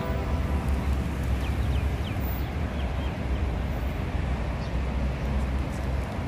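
Steady low rumble of road traffic, with a few faint high chirps about a second and a half in.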